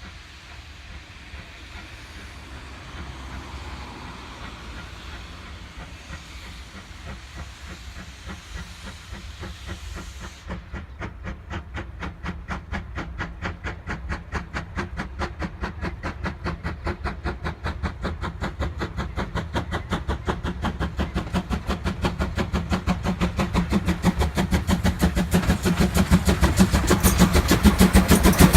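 C12 66, a JNR Class C12 steam tank locomotive, working a train toward the listener. A soft steam hiss comes first; about a third of the way in, a steady rhythm of exhaust chuffs starts and grows steadily louder as the locomotive draws near.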